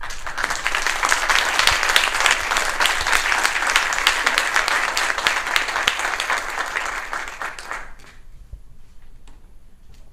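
A roomful of people applauding, many hands clapping densely at once, dying away about eight seconds in.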